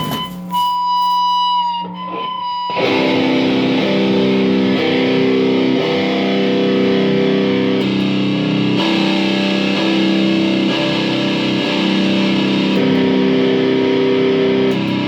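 Electric guitar played through a Monoprice tube amp fitted with a 12-inch Celestion speaker, with distortion on and the volume turned up. A few ringing single notes, then from about three seconds in, loud, sustained distorted chords.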